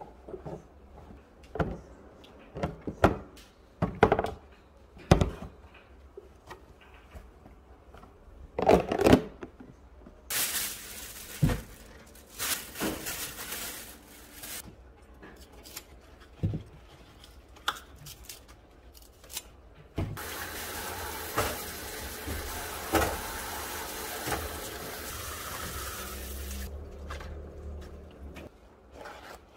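Kitchen tap water running into a stainless steel sink while green onions are rinsed: a short run about ten seconds in and a longer one of about six seconds from twenty seconds in. Before that, a series of sharp knocks and rustles from plastic storage containers and cloth being handled.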